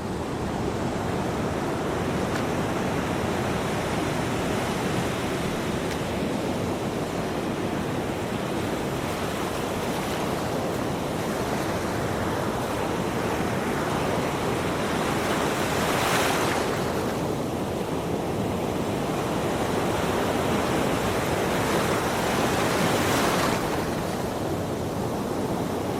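Ocean surf: a steady wash of waves, with two louder breakers about 16 and 23 seconds in.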